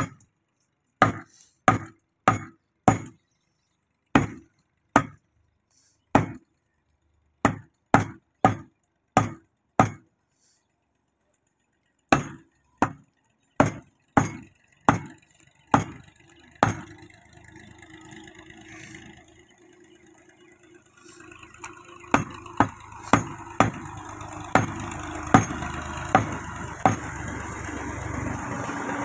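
Heavy meat cleaver chopping beef on a wooden chopping block: sharp single chops about one or two a second, with a pause of about two seconds midway. Over the second half a steady background noise grows beneath the chops.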